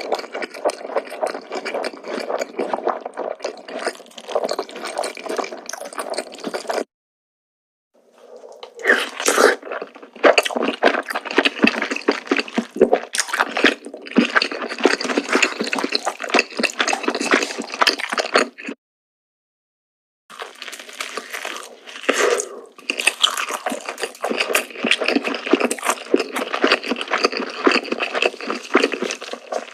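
Close-miked eating sounds: wet chewing and smacking with rapid crackles and clicks. The sound stops dead twice, once about seven seconds in and again near nineteen seconds, for roughly a second and a half each time.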